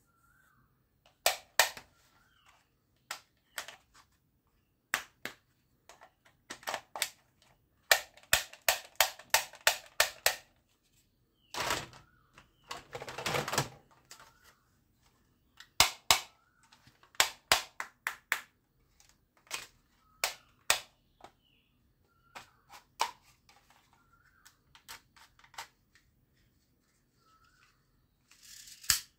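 Plastic toy guns clacking and knocking against each other as they are picked up and moved through a pile, with runs of quick clicks about a third of the way in and a longer rattling shuffle around the middle.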